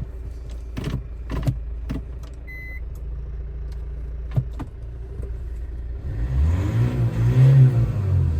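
Engine of a 2012 Kia Sportage R idling, with a few clicks and a short beep, then revved up and back down about six seconds in.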